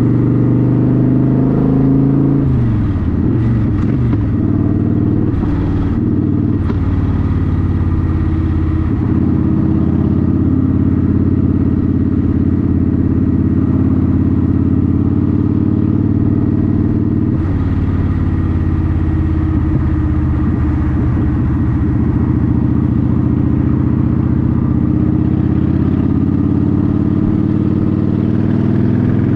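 Motorcycle engine running on a ride. Its pitch drops and climbs again between about two and five seconds in, then holds steady as it cruises.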